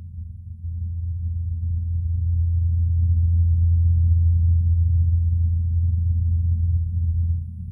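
Ingenuity Mars Helicopter's twin rotors whirring in flight, heard through the Perseverance rover's SuperCam microphone as a steady low hum. It swells over the first two seconds and drops off near the end.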